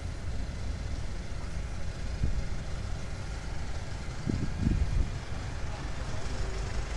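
Diesel engine of a Claas farm tractor running close by, a steady low rumble, with a few heavier low knocks about four to five seconds in.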